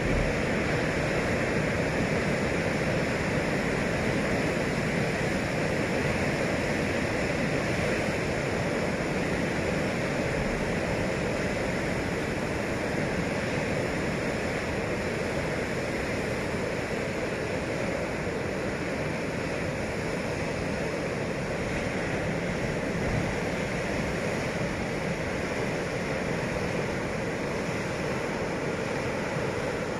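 Steady rush of surf breaking on a rocky shore, mixed with the rumble of a passenger train and its D19E diesel locomotive fading slowly into the distance.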